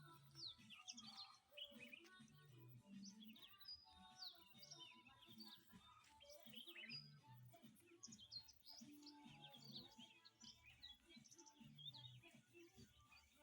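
Birds chirping rapidly in many short, high calls, faint, over quiet background music with low notes.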